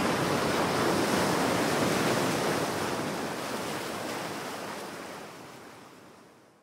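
Ocean surf washing onto a beach, a steady rush of noise that fades away over the last few seconds.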